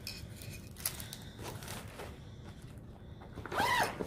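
Clear plastic zippered project bag being handled, with light rustling and a few soft clicks, then a short rising-and-falling squeak near the end.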